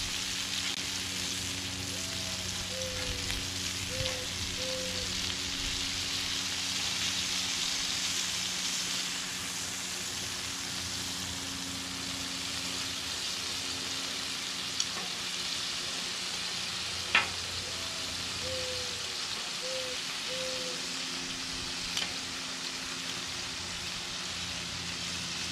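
Bacon-wrapped meatloaf sizzling steadily on a hot flat-top steel griddle while it is turned to sear its sides. A single sharp tap stands out about 17 seconds in.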